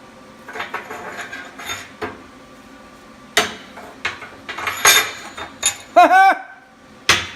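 Sharp metallic taps and clinks on steel as a tack weld is tried and fails to strike, which the welder puts down to poor contact. A short burst of clinks comes first, then single hard hits about three and a half, five and seven seconds in, with a brief warbling tone just after six seconds.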